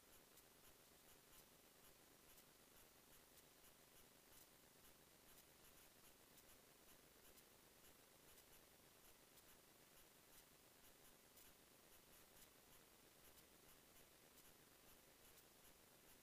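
Near silence: a faint steady hiss with light crackling.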